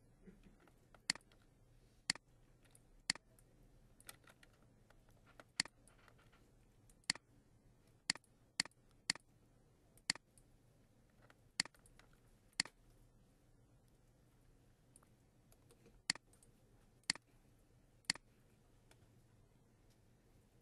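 Computer mouse button clicking: about fourteen single, sharp clicks, mostly a second or so apart, with a quick run of three in the middle and a few longer pauses.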